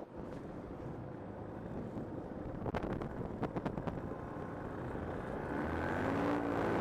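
Paramotor engine and propeller running in flight, heard through an onboard microphone with wind noise over it. A quick cluster of clicks comes about three seconds in, and the engine note rises near the end.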